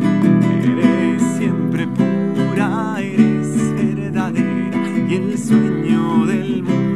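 Nylon-string classical guitar strummed steadily in a rhythmic chord pattern. A man's voice sings a wordless melody over it in places.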